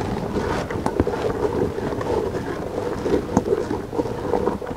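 Wind rumbling on the microphone, with a few light knocks of a wooden spoon stirring soy milk in a clay pot.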